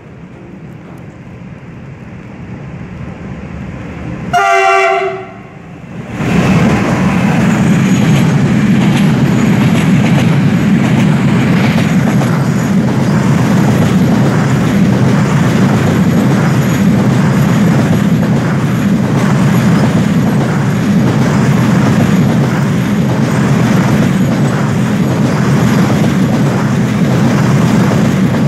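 Freight train hauled by a class 443 electric locomotive approaching with a growing rumble. About four seconds in, the locomotive sounds a single horn blast lasting about a second. From about six seconds in, loud steady rumble of the container flat wagons' wheels rolling past close by on the rails.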